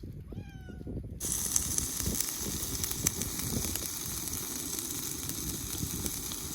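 Food sizzling on a hot pan over a camp stove, the crackling hiss starting suddenly about a second in and then running steadily.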